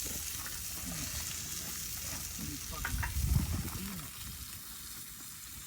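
Campfire hissing and crackling, with scattered sharp pops over a steady hiss. A brief low rumble comes about three seconds in.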